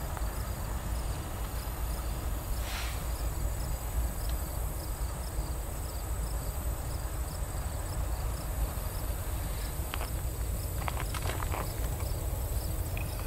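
Field insects chirping steadily in a fast repeating rhythm over a continuous low rumble, with a few faint clicks near the end. The rumble fits the distant diesel locomotive of the approaching grain train working toward the camera.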